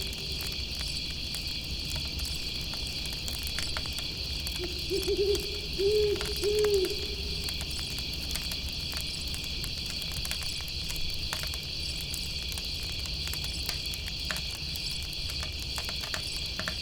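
An owl hooting a short run of low notes about five seconds in, over the steady high chirping of night insects and scattered crackles of a campfire.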